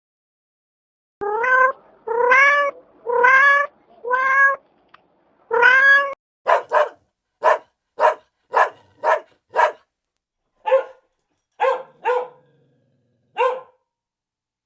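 A cat meowing: five drawn-out meows that rise in pitch, then a quick string of short, clipped calls at about two a second, thinning out near the end.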